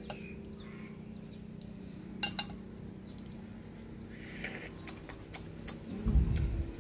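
Scattered light clicks and taps of eating boiled eggs: a metal spoon against a ceramic bowl and fingers picking at eggshell, with a louder low bump near the end, over a steady low hum.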